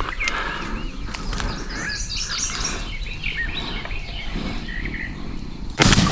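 Songbirds chirping and whistling in the woods, then a single loud shotgun shot near the end that echoes away.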